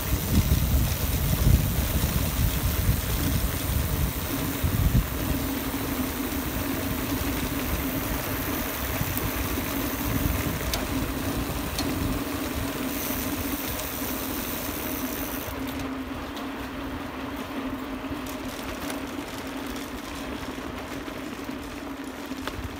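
Riding noise from a bicycle on a stone-paved road: wind buffeting the microphone and the tyres rumbling over the stones, with a steady hum underneath. The wind gusts are heaviest in the first five seconds, then the sound settles and slowly grows quieter.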